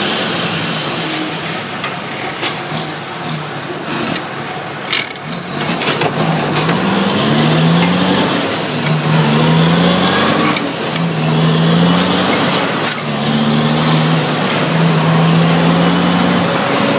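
International truck's Cummins L10 inline-six diesel pulling a load of lumber, accelerating up through the gears of a 10-speed transmission, heard from the cab. The engine note climbs in each gear and drops back at each shift, five or six shifts in the second half, with a few clicks early on.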